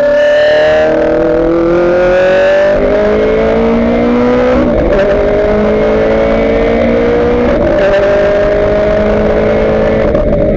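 Ferrari F430 GT race car's V8 engine under hard acceleration, heard from inside the cockpit. The engine note climbs steadily and drops sharply with each upshift: once about five seconds in, again about eight seconds in, and once more near the end.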